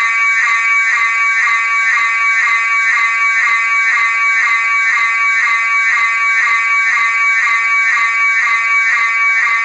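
Fire alarm going off: a loud, continuous ringing tone that pulses rapidly and evenly.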